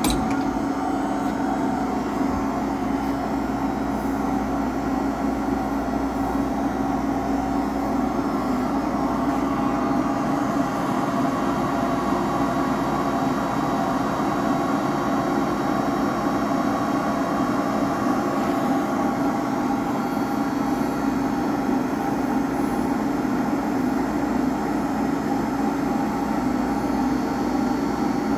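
Toolmex TUR630 CNC lathe running a short program, its main spindle drive turning at speed with a steady hum carrying several held tones.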